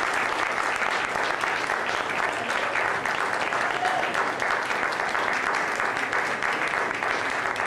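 Concert audience applauding steadily, a dense even crackle of many hands clapping.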